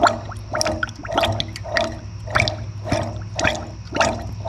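An overhead hoist lowering a suspended engine, its pulley squeaking and clicking in an even rhythm about twice a second over a steady low hum.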